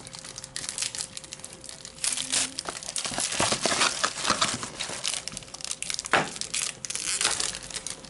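A foil trading-card pack wrapper being torn open and crumpled by hand. It starts as light crinkling, turns into dense, louder crackling about two seconds in, and thins out near the end.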